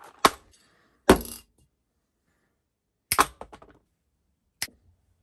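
Small metal screws being handled on a wooden workbench: a few sharp clicks and clinks, with a short rattle after each, two close together near the start, then a pause, then two more.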